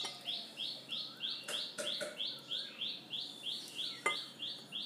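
A bird chirping: short high chirps repeated very evenly, about four a second, with a softer wavering call beneath them. A few light knocks come through, the loudest about four seconds in.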